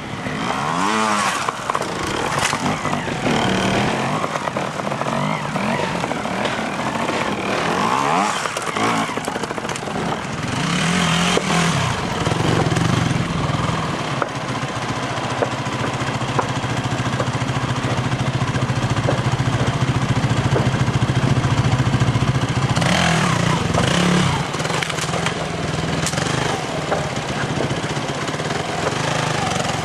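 Trials motorcycle engines blipping and revving, the pitch rising and falling as the throttle is worked on rock steps, then settling into a steadier, held low engine note through the second half.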